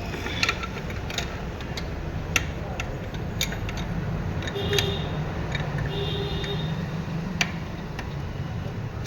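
Sharp, irregular metallic clicks and taps of a spanner working the fan-belt adjuster bolt to tighten a loose, noisy belt, over a steady low hum.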